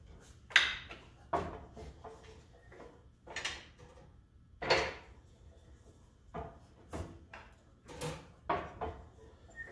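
Hand-operated sheet-metal brake clunking as sheet steel is bent in small, loose bends to form a roll: about ten separate metallic knocks from the clamp and bending leaf, the loudest about half a second in and near five seconds.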